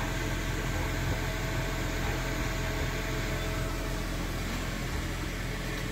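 Steady low machine-like hum under a wash of even background noise, with a faint steady tone that fades out about halfway through.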